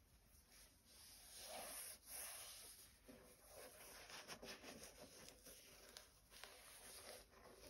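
Faint rustling and brushing of cotton-gloved hands handling an Adidas Yeezy Boost 700 V2 sneaker's mesh and leather upper, with a few light clicks.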